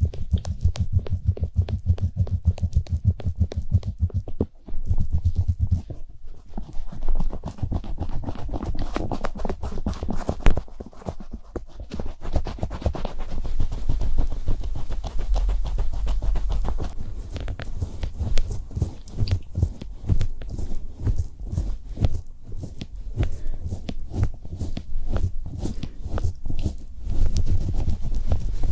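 Rapid, dense tapping and scratching close to a microphone, played as an ASMR trigger. The clicks come many times a second over a heavy low thump.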